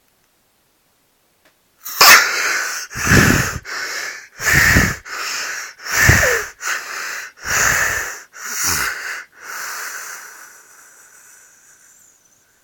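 Snoring: loud, rasping breaths in quick succession, starting about two seconds in and coming roughly every second and a half, each with a low rattle. It trails off into a fading hiss near the end.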